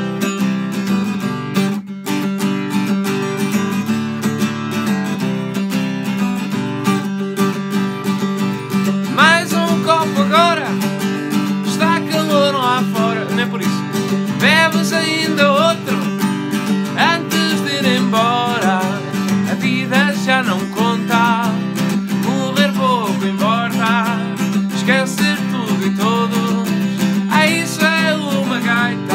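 Acoustic guitar strummed in a steady rhythm; from about nine seconds in a man's voice sings over it.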